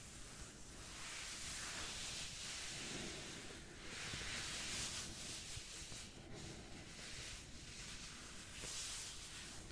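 Slow ASMR back-scratching: nails scratching in long, unhurried strokes, each a soft swell of hiss that rises and fades, several in a row.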